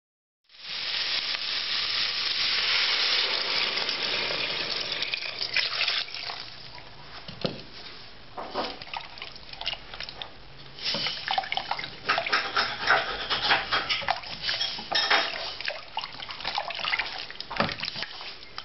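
A loud rush of water into a stock pot of browned rabbit bones for the first few seconds. After that a wooden spoon stirs the bones in the liquid, with sloshing and irregular knocks and scrapes against the pot.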